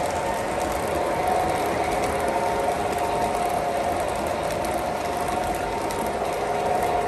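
MTH O scale Great Northern model passenger train running along the track: a steady mechanical rolling and gear noise with a steady whine through it.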